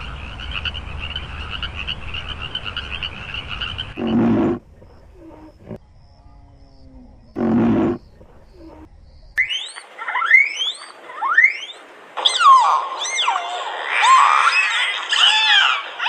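A frog's rapid, steady trill of croaking, then two loud short calls from a large animal about three seconds apart. From about nine seconds in, dolphins whistle: rising whistles at first, then many rising and falling whistles overlapping.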